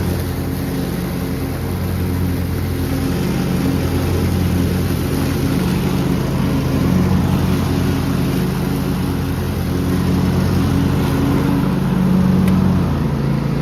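22-horsepower Kohler engine of a Craftsman T2400 riding lawn mower running steadily as the mower is ridden, its pitch wavering a little and beginning to drop near the end.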